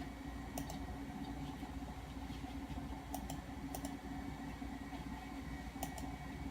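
Computer mouse button clicked several times, each click a quick press-and-release pair, spaced a second or more apart, over a steady low hum.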